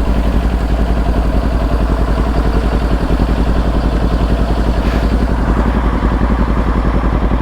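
Motorcycle engine running at a steady speed with evenly spaced firing pulses and no revving.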